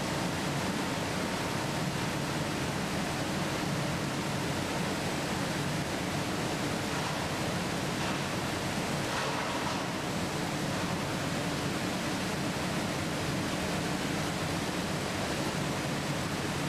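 Water rushing and splashing through a fruit-packing flooder tank, a steady, unbroken noise with a low machine hum underneath.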